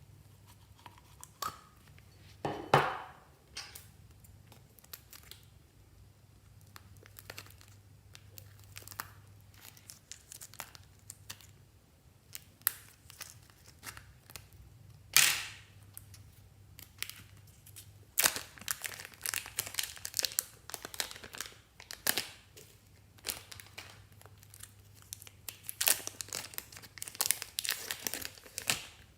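Fluffy slime being squeezed and stretched by hand, crackling and popping as the air bubbles in it burst. Two louder pops come about 3 s and 15 s in, and the crackling turns dense and continuous in the last third.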